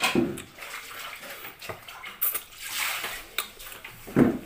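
A person eating: wet chewing and mouth noises in uneven bursts, with a few short clicks.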